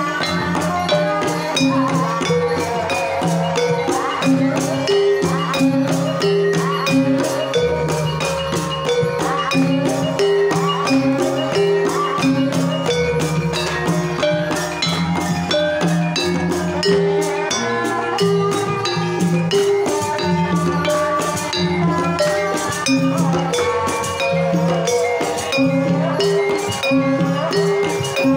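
Live Javanese gamelan playing a Banyumasan tayub gending. Kendang hand drums drive a dense, steady rhythm over metal keyed metallophones and kettle gongs, while a sinden sings a wavering melody over it through a microphone.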